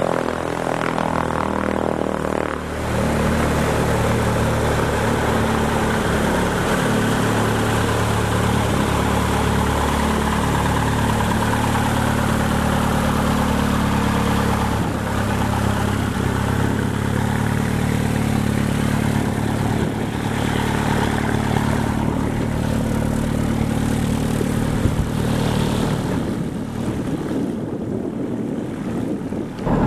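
The OMF Symphony's 160-horsepower single piston engine and propeller running steadily, stepping up in level about two and a half seconds in.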